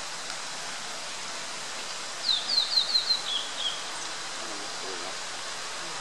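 Male blue-and-white flycatcher singing: one quick phrase of about seven falling whistled notes, a couple of seconds in, over a steady background hiss.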